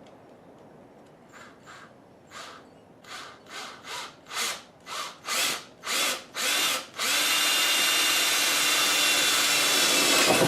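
Power drill with a small bit starting a hole in a car hood: about a dozen short trigger pulses that grow louder, then a steady run with a whine for a few seconds that cuts off near the end.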